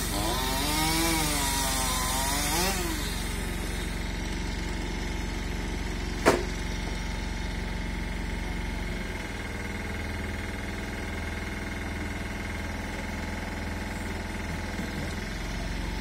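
Chainsaw revving up and down for about three seconds, over the steady running of the aerial lift truck's engine. A single sharp knock about six seconds in, and the engine's low note shifts from about nine seconds until near the end.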